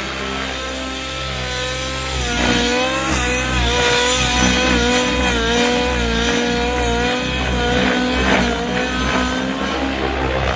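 Nitro RC helicopter's O.S. 105 HZ-R two-stroke glow engine with a Powerboost tuned pipe running at high speed, with its pitch wavering and dipping under changing load during aerobatic manoeuvres. The engine is set up slightly rich and trails smoke.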